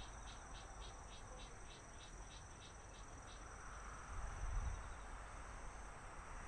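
Insect chirping in a quick even series, about five chirps a second, over a steady faint high hum; the chirping stops about halfway through. A brief low rumble comes about four seconds in.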